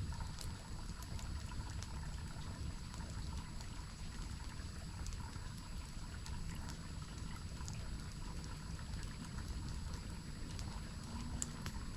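Waterfall water running steadily, with scattered sharp crackles and pops from a campfire, one louder pop near the end.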